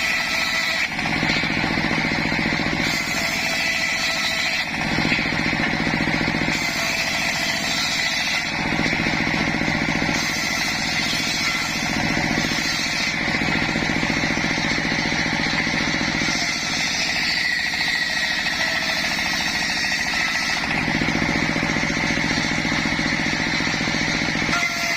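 Home-built circular sawmill machine running loudly and steadily during log sawing, its sound shifting back and forth every couple of seconds.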